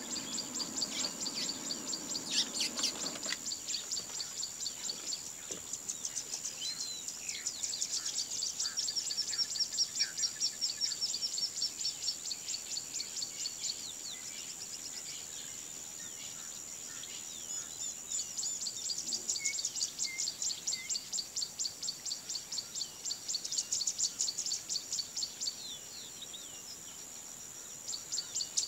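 Bush ambience: a steady, high, rapidly pulsing insect chorus with scattered bird chirps and calls over it. A low hum is heard in the first three seconds, then stops.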